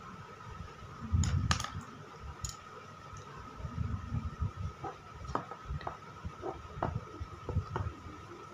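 Scattered light clicks and taps at irregular intervals, sharpest in a short cluster about a second in, over a faint steady high whine and low rumbling handling noise.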